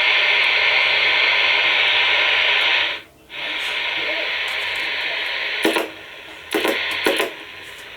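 Realistic TRC-57 CB base station's receiver hissing loudly with open static through its speaker. The hiss cuts out for a moment about three seconds in. A few clicks follow, and the hiss stops shortly before the end.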